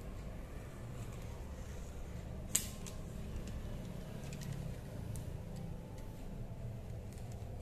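Handling of the headphone packaging: quiet rustling and faint ticks over a low steady hum, with one sharp click about two and a half seconds in.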